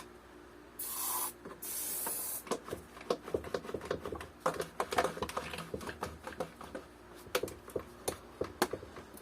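Two short hisses of silicone spray from an aerosol can, about a second apart. They are followed by a run of light clicks and knocks as the wooden parts are handled.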